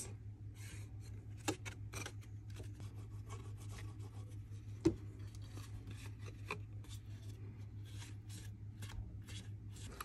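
Faint rustling and light taps of cardstock being handled, as the glued flaps of a folded paper box are pressed together with the fingers, with a sharper tap about one and a half seconds in and a louder one about five seconds in. A steady low hum runs underneath.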